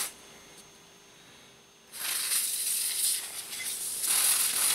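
Cleaning work on the clock radio's alarm mechanism: a rough, high hiss that breaks off at the start, stays quiet for about two seconds, then comes back and carries on.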